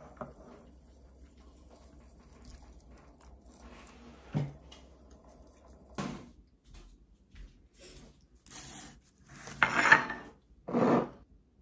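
Tableware handled at a table: quiet spoon-on-ceramic-bowl sounds with a single knock, then a sharp click and several louder handling noises of dishes and packaging in the last few seconds, the loudest near the end.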